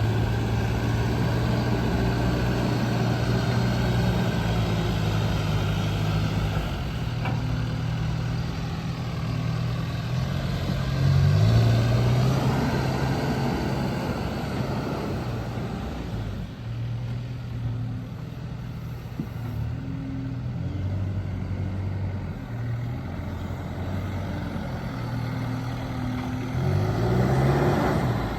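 John Deere 310K backhoe loader's four-cylinder diesel engine idling steadily, its speed rising briefly twice: about eleven seconds in and again near the end.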